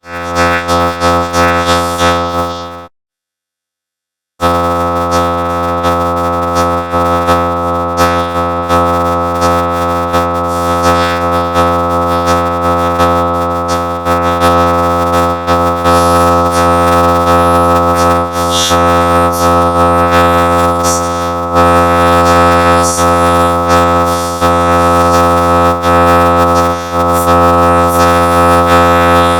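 A children's sing-along song run through a heavy audio effect, heard as a loud, dense, droning buzz of many steady tones with a synthesizer-like quality. The sound cuts out completely for about a second and a half about three seconds in, then comes back.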